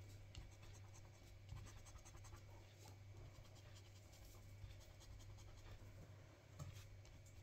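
Faint, quick scratching strokes as the coating of an Irish National Lottery crossword scratch card is scratched off, coming in irregular runs over a steady low hum.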